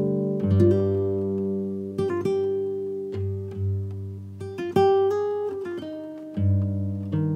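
Background music: a slow, plucked acoustic guitar melody over sustained low bass notes.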